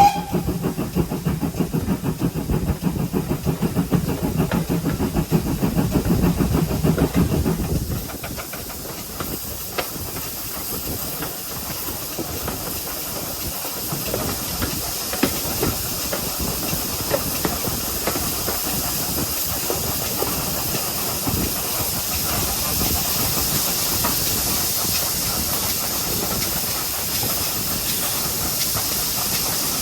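Pannier tank steam locomotive 7714 running: a rapid, pulsing chuff for about eight seconds, which stops suddenly and gives way to a steady steam hiss that slowly grows louder.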